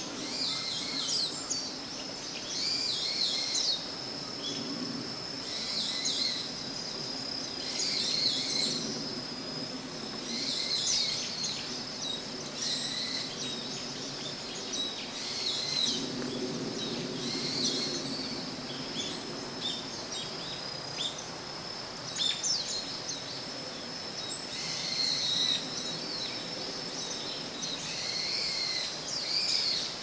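Forest ambience: a bird calls in short phrases of quick high sweeps, repeating roughly every two to three seconds, over a steady high-pitched tone and a soft low background rumble.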